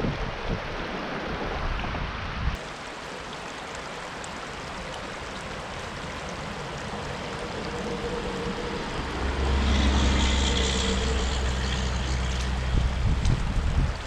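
Creek water running steadily. About nine seconds in, the low hum of a passing engine builds, is loudest a second later, and fades toward the end.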